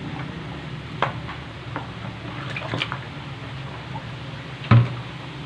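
Raw chicken pieces pushed by hand from a plastic bowl into a pot of spiced water: wet squishing and dripping with a few small knocks, then one louder knock near the end. A steady low hum runs underneath.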